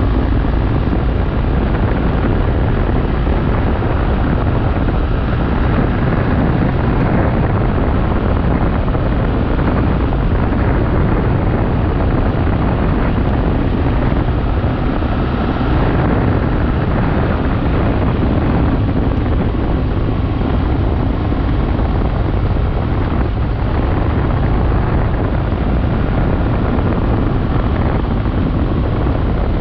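Adventure motorcycle riding steadily along a dirt road: the engine running under a constant rush of wind noise on the microphone, with no sudden changes.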